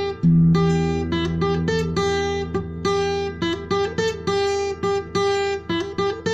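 Acoustic guitar playing an instrumental tune: single plucked melody notes, each ringing and fading, over held bass notes, with a brief gap right at the start.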